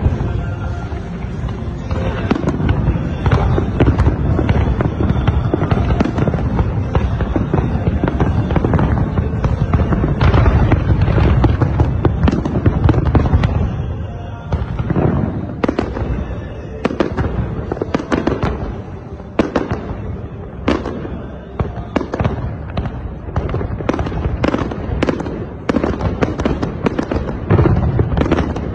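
Fireworks display going off in a dense, continuous barrage of bursts and crackling. About halfway through it breaks into many separate sharp cracks, several a second.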